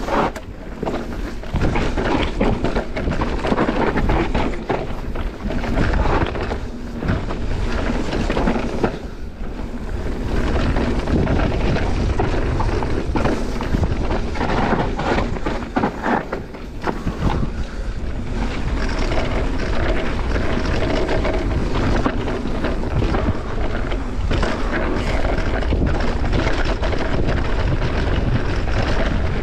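Wind buffeting the microphone over the rumble and rattle of a mountain bike's tyres rolling fast over a rough, rocky trail, with many short knocks from the bike and the ground.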